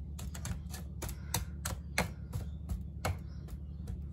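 A small whiskey glass is pressed and tapped repeatedly onto a biscuit-crumb cheesecake base in a metal springform tin, making quick, irregular, crisp clicks at about four or five a second. A steady low hum runs underneath.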